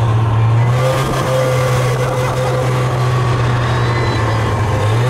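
Snowmobile engine running under way with a steady drone, its pitch dipping slightly and picking back up about half a second in.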